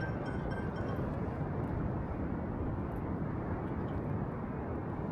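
Steady low noise of wind and sea swell, rumbling evenly with no separate events.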